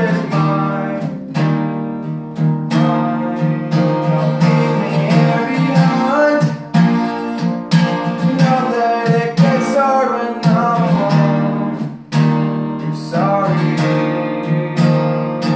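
Acoustic guitar strummed in a steady slow rhythm, with a male voice singing a slow, sad melody over it in phrases.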